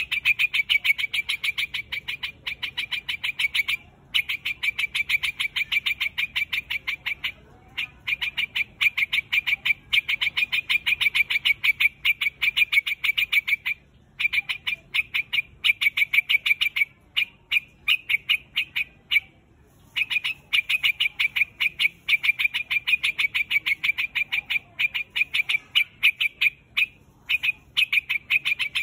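A white-headed quạch mốc, a bird kept in Vietnam, calling to its flock: long runs of short, sharp notes repeated about seven times a second, broken by brief pauses every few seconds.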